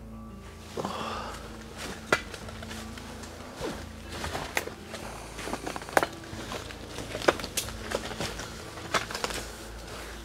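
Footsteps on fallen leaves and twigs, with irregular sharp snaps and crackles.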